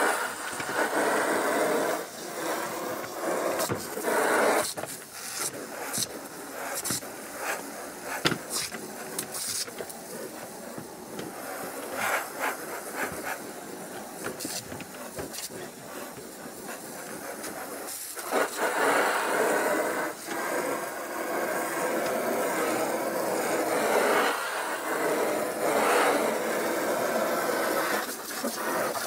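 Garden hose spray nozzle jetting water onto vinyl golf cart seats: a steady hiss and splatter, with sharp spattering clicks in the first ten seconds and the spray growing louder about eighteen seconds in.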